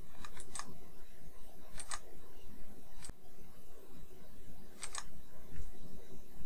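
Computer mouse clicking a few times, short sharp clicks spaced out over several seconds, some in quick pairs.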